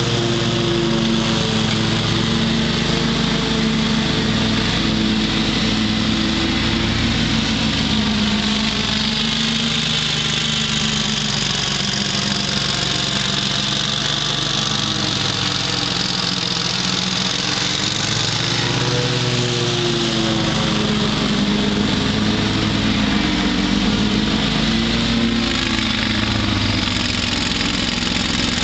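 Great Dane Super Surfer 52-inch stand-on mower's engine running steadily while mowing, its pitch dipping and rising a little now and then.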